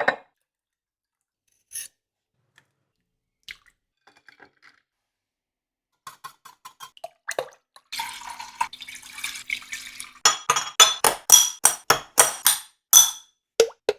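A spoon working through thick yogurt in a glass dish. A few faint taps come first, then a wet scraping stretch about eight seconds in. Near the end, a quick run of bright clinks of spoon against glass, about three a second.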